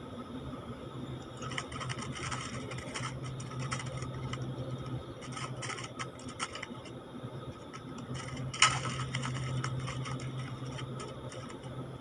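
A wild stripe-throated bulbul fluttering and scrabbling on a wire cage trap, its wings and claws making irregular scratching and rattling, with one sharp snap about two-thirds of the way through. A steady low hum runs underneath.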